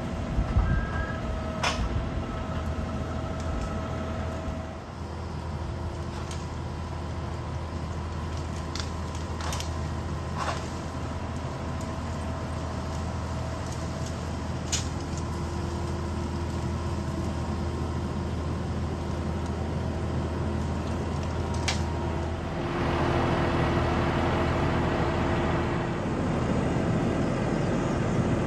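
John Deere 5065 tractor's diesel engine running steadily while it pulls a rotary cutter (brush hog) over cleared brush ground, with scattered sharp ticks and cracks from debris. About 23 seconds in, the sound grows louder and harsher.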